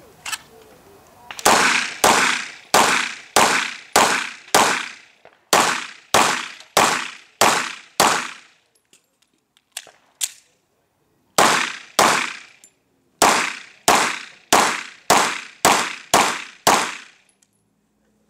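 Pistol fired in rapid strings of shots, about two a second, each shot sharp with a short ringing tail. There are three strings of roughly seven to twelve shots, with pauses of one to three seconds between them.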